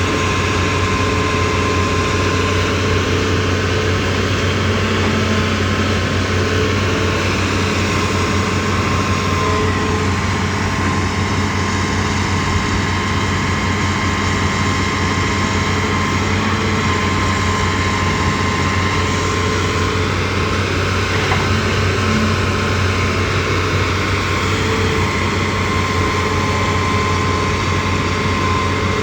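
Hitachi ZAXIS200 excavator running steadily: a low diesel engine drone with steady higher-pitched whining tones over it.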